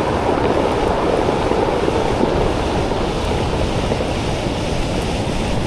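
Surf washing onto the beach, mixed with wind buffeting the microphone; the wash swells over the first half and then eases slightly.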